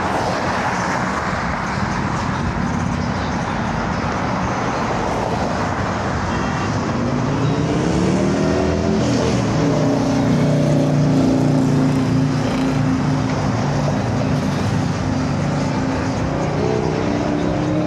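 Street traffic with cars driving past, and a car engine rising in pitch about seven seconds in, then holding a steady note.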